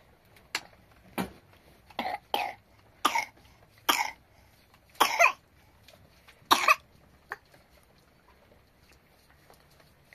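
A person coughing: about nine short, harsh coughs in a row over the first seven seconds, one of them drawn out a little longer.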